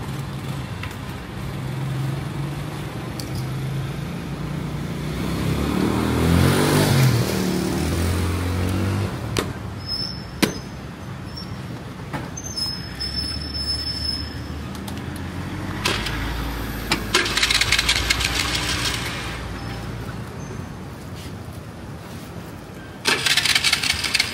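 Motor vehicle engines running, their pitch rising and falling, with a few sharp clicks and bursts of noise.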